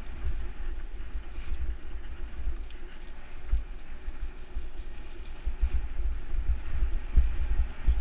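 Mountain bike, a Specialized Stumpjumper, rolling fast over a leaf-strewn dirt singletrack: a steady noise of tyres on dirt and leaves under an uneven low rumble of jolts and wind buffeting on the mounted camera's microphone.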